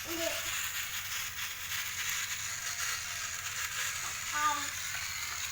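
Two short, high-pitched vocal sounds from a child, one at the start and one about four and a half seconds in, over a steady hiss.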